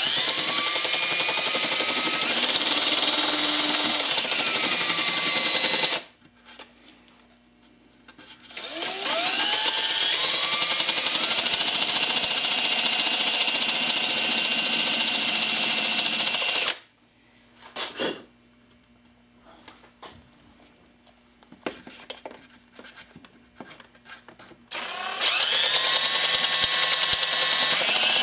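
Cordless drill boring into a motorcycle backrest's back plate, run in three long bursts of several seconds each. At each start the motor's whine climbs in pitch as it spins up. Small handling clicks come in the pauses between runs.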